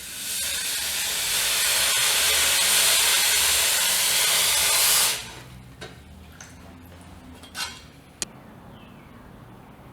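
A loud, steady hiss of rushing air or spray that cuts off suddenly about five seconds in, followed by a couple of faint clicks.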